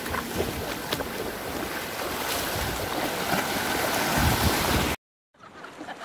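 Shallow surf washing and foaming over a sandbar, with wind buffeting the microphone; it cuts off abruptly about five seconds in.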